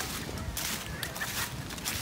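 Footsteps through a thick layer of dry fallen leaves, a rustling crunch with each step.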